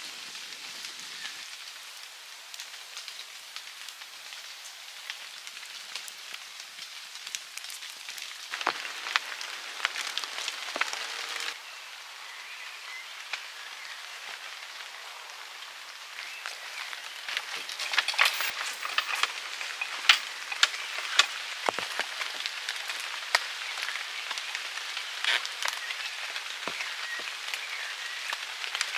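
Rain falling: a steady hiss with many scattered sharp drop ticks and taps, busier in stretches partway through.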